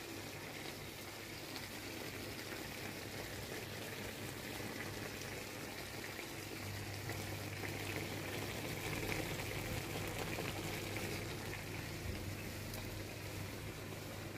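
Pork chunks and onion sizzling and bubbling in their juices in a cast-iron frying pan, a steady crackling hiss. A low steady hum comes up about halfway through.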